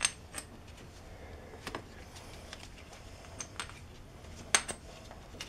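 Scattered light metallic clinks and ticks, about half a dozen spread over a few seconds, as small steel bolts and parts are handled.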